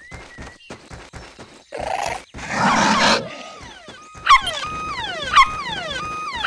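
Cartoon puppy barking about once a second from about four seconds in, each bark trailed by a held tone that slides down. It follows a loud rushing hiss a little over two seconds in.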